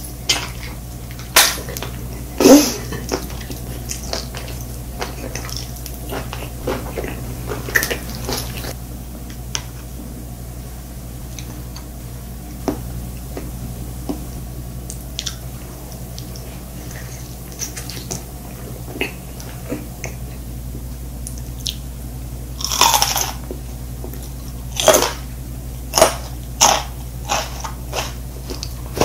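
A person chewing a mouthful of cooked octopus tentacle close to the microphone: scattered wet clicks and smacks, with louder chewing sounds about two seconds in and again near the end. A steady low hum lies under it.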